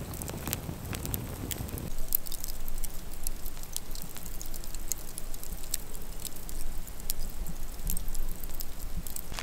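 Scattered raindrops pattering in light drizzle, as irregular sharp ticks, with a low wind rumble that stops about two seconds in.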